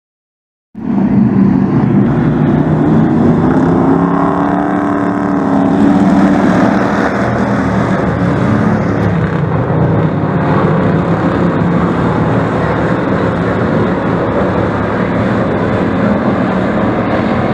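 Engines of several dirt-track race trucks running around the oval, their pitch rising and falling as they pass about four seconds in. The sound starts suddenly under a second in, after a brief silence.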